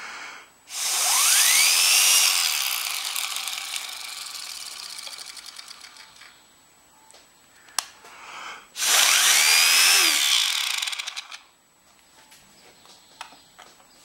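Small 3D-printed gear-type air motor driven by air blown in through a drinking straw, run twice. Each time air rushes through and the plastic gears spin up with a rising whine. The first run then slows with a ticking rattle before stopping.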